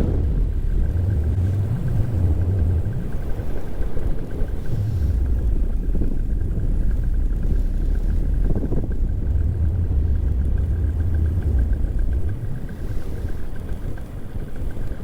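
Paramotor engine and propeller running steadily, with a constant high tone over it, while wind rumbles unevenly on the microphone.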